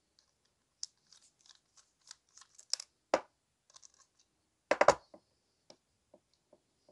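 Screwdriver bit working in a folding knife's pivot screw: small irregular clicks and scrapes, with one sharper click about three seconds in. Just before five seconds comes a short cluster of louder clacks as the screwdriver is set down on the wooden table.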